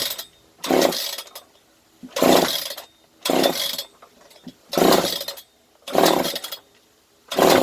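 Hitachi DSH 700-X cut-off saw's two-stroke engine being pull-started over and over. There are about six rope pulls, roughly one every second and a half, each a short rasping whir as the recoil starter spins the engine over without it catching.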